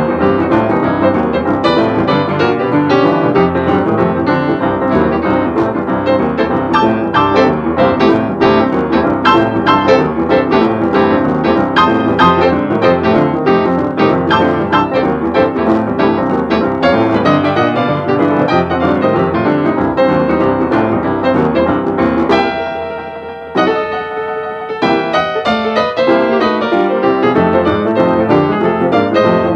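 Piano music with quick, busy runs of notes that thin to a few held notes for a couple of seconds about 23 seconds in, then pick up again.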